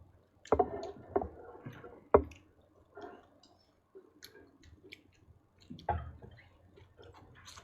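Scattered light clicks and knocks, with faint low voices between them.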